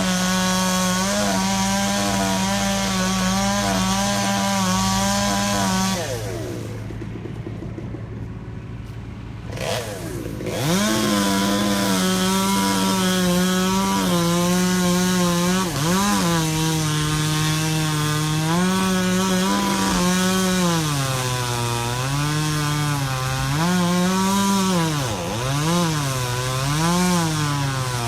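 Two-stroke chainsaw running at high revs. It drops back to idle about six seconds in and revs up again near ten seconds. Its pitch then dips and recovers repeatedly as it cuts under load.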